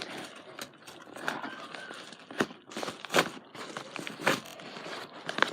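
Packaging being handled and opened by hand, with rustling and crinkling and a few sharp snaps or clicks in the second half.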